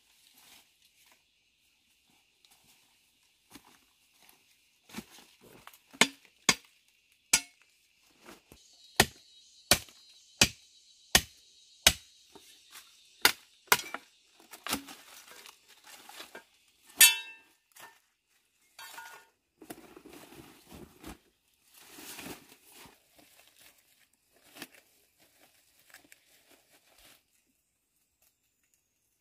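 A run of about a dozen sharp knocks, roughly one every two-thirds of a second, then scattered rustling and handling noises with one more loud crack.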